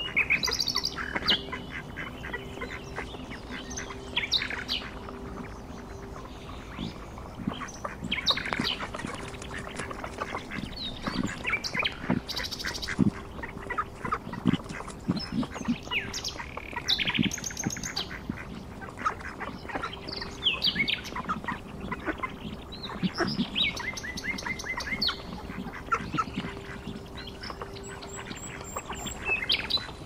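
Ducks and other water birds calling: a busy mix of quacks, squawks and short high chirps all through, over a faint steady hum.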